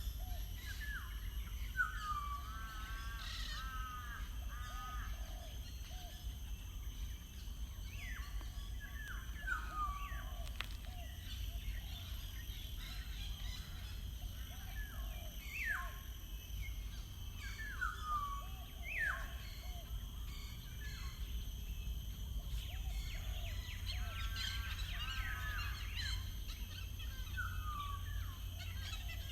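Wild birds calling and singing: repeated sharp downward-slurred whistles and quick runs of short chirping notes, some from more than one bird, over a steady low background rumble.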